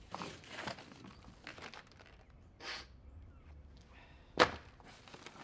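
Large cardboard shipping box being opened and handled: scattered rustling and scraping of cardboard, with one sharp knock about four seconds in.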